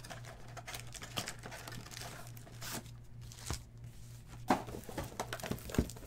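Trading-card pack wrappers being torn open and crinkled in the hands, with scattered sharp crackles and rustles over a steady low hum.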